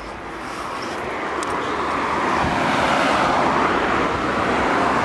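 Road vehicle approaching, its noise growing louder over about three seconds and then holding steady.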